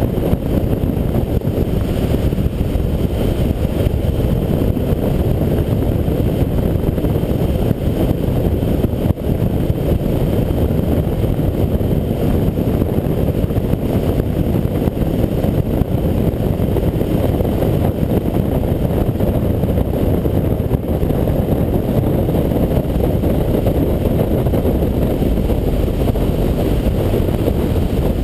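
Steady deep rush of wind buffeting the microphone of a camera mounted on a hang glider in gliding flight, the airflow over the glider at flying speed.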